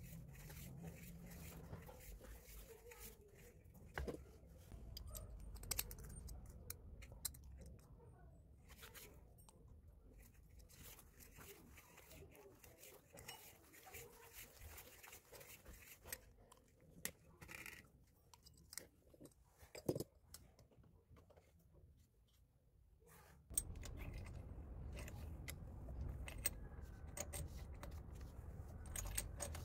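Faint handling noises of plumbing fittings: PTFE thread-seal tape pulled off its roll and wrapped around the threads of a brass fitting, with scattered small clicks and taps of metal parts handled.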